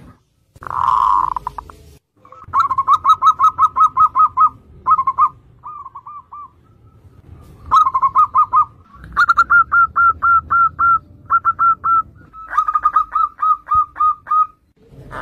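Zebra doves cooing: phrases of rapid, short, staccato coos, about five to seven notes a second, with brief pauses between the phrases.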